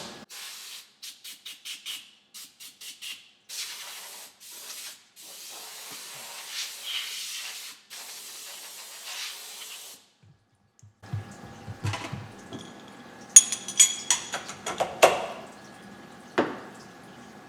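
Repeated short spraying hisses inside a CNC mill where aluminum soft jaws have just been cut with flood coolant. From about eleven seconds in, a steady machine hum runs under a series of sharp metallic clinks and knocks.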